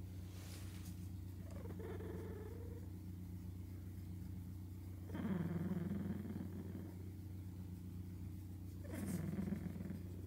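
A domestic cat purring, louder in two rumbling stretches about five and nine seconds in.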